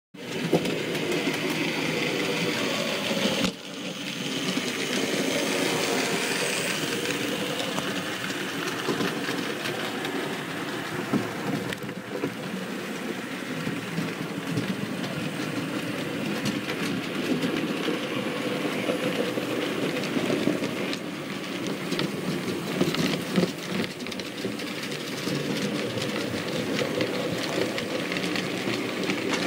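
Model railway train running along the track, heard close up as a steady rolling noise of wheels and motor with small irregular clicks. It starts abruptly and dips briefly about three and a half seconds in.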